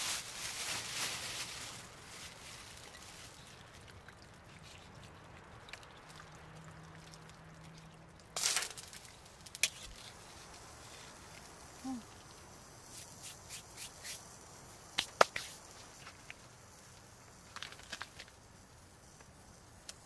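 Quiet hand handling of food and packaging: a plastic bag rustles for the first couple of seconds, then scattered small clicks and taps follow, with the sharpest click about fifteen seconds in.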